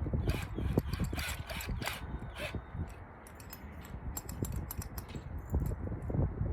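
Irregular clicks, taps and light clatter of small hard tool parts being handled and fitted together by hand.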